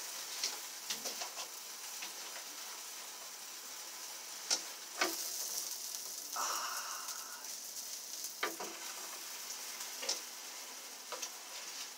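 Sausage links sizzling on a grill: a steady frying hiss, with a few sharp clicks and a brief louder swell of sizzle partway through.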